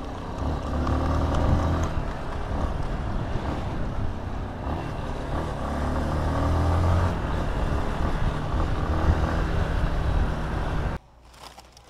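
Yamaha Lander 250 single-cylinder motorcycle engine running while riding, its pitch rising and falling a few times. The sound cuts off abruptly near the end.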